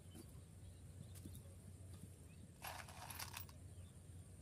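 Near silence with a faint steady low hum, broken by a brief rustle lasting about a second a little past halfway and a few faint clicks, as hands work a piece of pumpkin among leaves.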